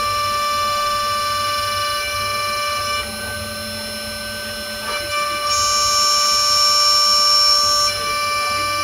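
High-speed spindle of a 5-axis desktop CNC mill whining steadily while a 0.5 mm two-flute end mill cuts aluminum. The tone shifts and dips about three seconds in, then a louder, higher whine comes in from about five and a half to eight seconds.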